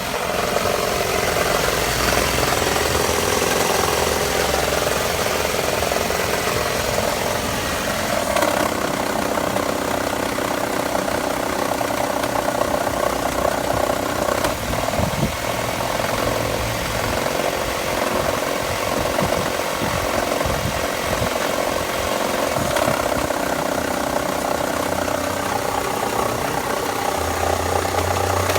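2000 Toyota RAV4's four-cylinder engine idling steadily, with a rattling tick that the owner is trying to identify; a run of sharper clicks stands out about halfway through.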